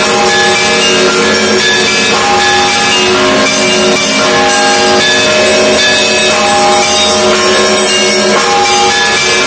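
Russian Orthodox monastery bells ringing: many bells of different pitches struck over one another, their tones ringing on and overlapping in a continuous, loud peal.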